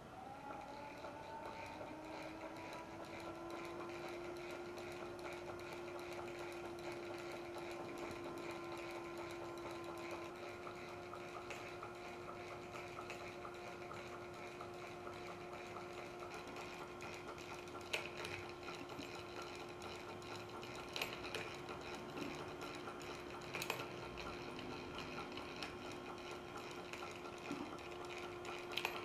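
A small brass model electric motor starts up and settles into a steady whine. It drives a belt-driven model eccentric press whose mechanism runs with a light, even clatter. A few sharp clicks stand out in the second half.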